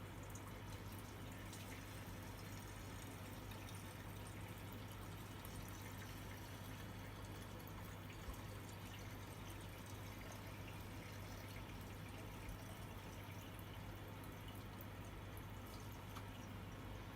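A faint, steady low hum with a few small clicks.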